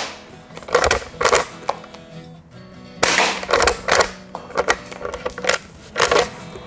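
CO2-powered lever-action airsoft rifle firing, a sharp crack about three seconds in and another about six seconds in, with the clacks of the lever being worked to eject the shell and chamber the next round between shots.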